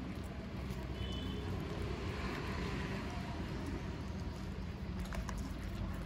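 Steady low rumble of street background noise, with a few faint clicks about five seconds in.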